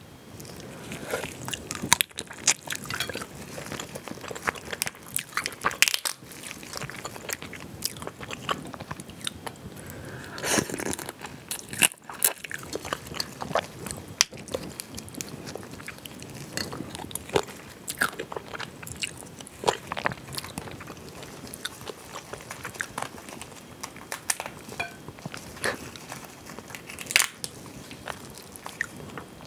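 Boiled mala crayfish (crawfish) being peeled and eaten by hand: the shells crack and snap in many sharp, irregular bursts, mixed with chewing.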